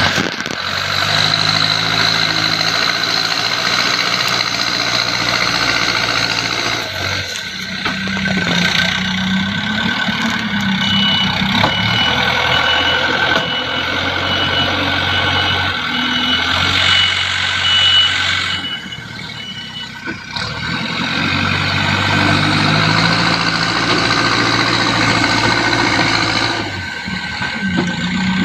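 Diesel engine of a JCB 3DX backhoe loader working, its revs rising and falling. A reversing alarm beeps steadily for about ten seconds in the middle.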